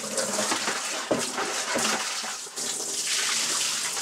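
Water running from a tap as buckets are rinsed out: a steady rush of water, with a couple of brief knocks about a second and nearly two seconds in.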